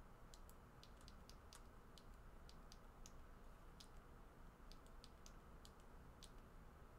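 Faint, irregular small clicks, a few a second, over low hiss: the buttons of a Ledger hardware wallet being pressed to enter its PIN code.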